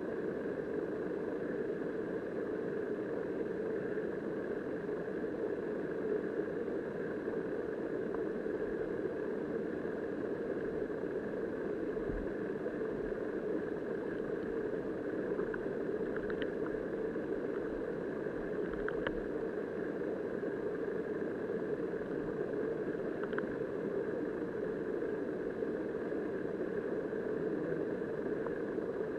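Steady, muffled rush of river current heard underwater by a submerged camera, with a few faint clicks in the second half.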